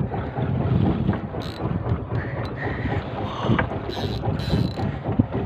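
Wind buffeting the microphone on a small boat at sea, a dense uneven rumble with faint sea noise under it.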